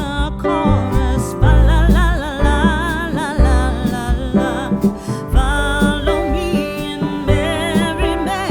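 Background music: a song with a singing voice over guitar and a steady bass beat.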